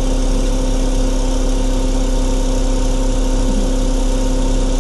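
JCB backhoe loader's diesel engine idling steadily, heard from inside the cab, with a constant low rumble and a steady hum.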